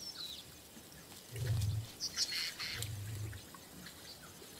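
Lions feeding at a kill, giving two short low growls about a second and a half apart, with small birds chirping high over them.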